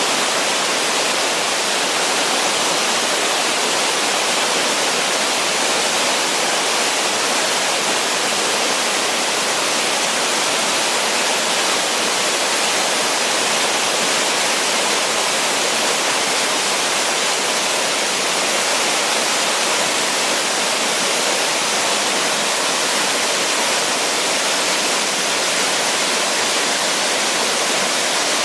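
Water of a slide waterfall rushing down smooth bedrock: a steady, even rush, brighter than deep, that never changes.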